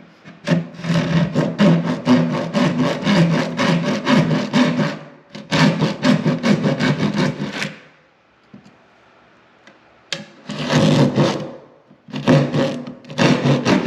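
Saw cutting through wood in quick, even strokes, about four a second, in three runs separated by short pauses.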